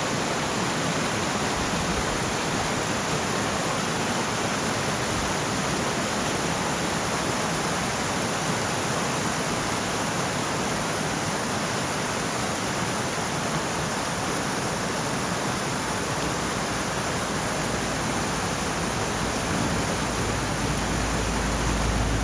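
A creek's running water: a steady, even rush.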